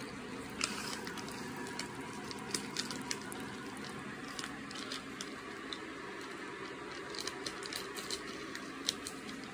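Scattered small wet clicks and crackles of a mouth working on Warheads sour popping candy, over the steady hum of a room fan.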